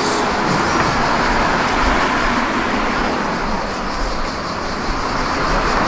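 Street traffic: a steady wash of passing road vehicles, swelling a little about two seconds in and again near the end.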